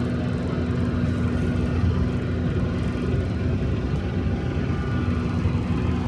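Steady low engine rumble with a constant hum, even throughout.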